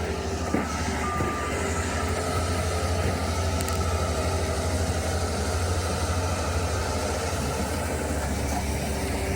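Bobcat S76 skid steer's diesel engine running steadily under power, a deep even hum with a constant mechanical din over it.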